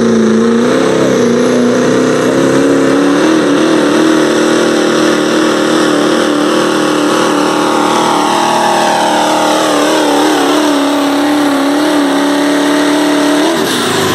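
Turbocharged Pro Stock diesel pickup pulling a weight sled at full throttle, its engine loud with a steady, held pitch. Near the end the engine note breaks off and drops away as the pull ends.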